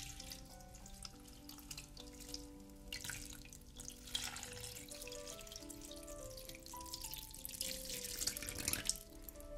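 Water poured in a stream from a glass measuring jug into a glass bowl of broccoli florets, splashing and filling the bowl. The pouring gets louder about three seconds in and stops shortly before the end, over soft background music.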